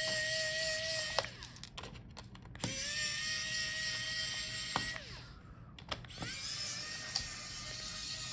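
Small electric screwdriver running in three short spells, a steady whine that rises slightly at each start, with clicks between, as it backs out the screws holding the laptop's hard-drive caddy. The first spell stops about a second in, the second runs from about 3 to 5 seconds, the third starts about 6 seconds in.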